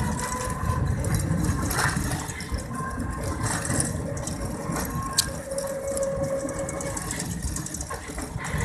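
Steady rumble of a moving vehicle's engine and road noise, heard from on board, with a sharp click about five seconds in.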